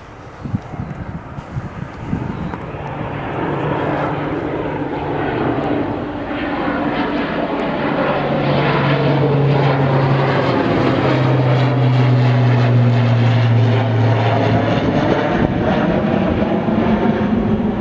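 Airliner passing close by, its engine noise swelling over several seconds to a loud, steady peak with a low hum running through it. The noise eases off slightly near the end.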